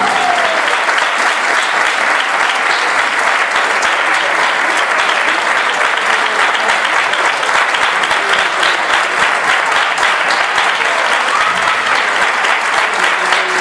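Audience applauding loudly and steadily. A sung flamenco note trails off in the first half-second.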